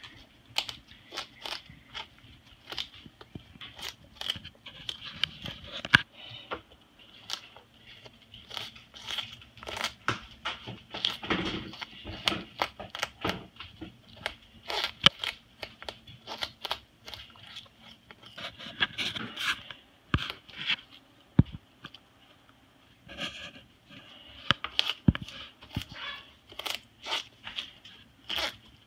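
Moluccan cockatoo crunching and tearing apart sugarcane with its beak: irregular sharp cracks and splintering snaps, with a short lull about three-quarters of the way through.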